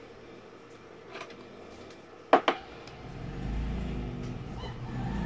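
Two sharp clicks in quick succession a little past two seconds in, after a fainter click. From about three seconds a low mechanical drone rises and holds.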